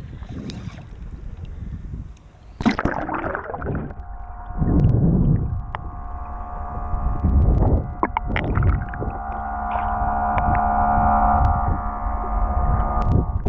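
Action camera plunging into the sea about two and a half seconds in, then the muffled underwater sound: low rushing surges of water against the camera housing over a steady droning hum.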